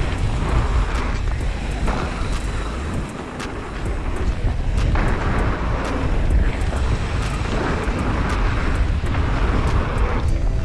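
Downhill mountain bike ridden fast down a gravel flow trail, heard from a camera on the bike or rider: a steady low rumble of wind on the microphone with tyres crunching over gravel, swelling and easing through the berms, and occasional light clicks and rattles.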